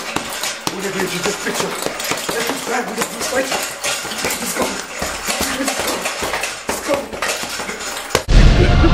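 Heavy punching bag being struck over and over: a rapid clatter of sharp slaps and metallic clinks from the hanging bag. About 8 seconds in, a loud, low music hit starts abruptly.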